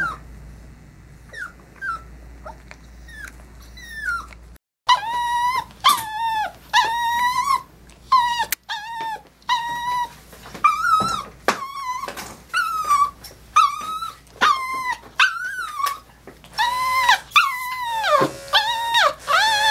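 Maltese dog whining: faint short whines at first, then about five seconds in, louder high-pitched whines repeating about twice a second, each one bending in pitch, with one longer drawn-out cry near the end.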